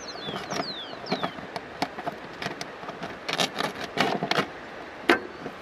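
Handling noises as a hand picks live freshwater prawns from a container of wet river stones: irregular scrapes, rustles and clicks, busiest a little past the middle, with one sharp click near the end. A few short high whistles falling in pitch come near the start.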